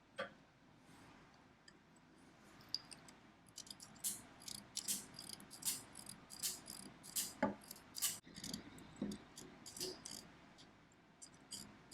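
Webb Adder, a metal wheel-type adding machine, being worked: a run of light, irregular metallic clicks as its wheels are stepped round and the carry mechanism trips, several a second from about three seconds in.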